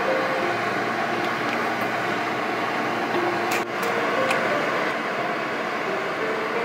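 Eggs sizzling as they fry on a griddle plate over a gas range: a steady frying hiss, with a sharp click about three and a half seconds in. Soft background music notes sound over it.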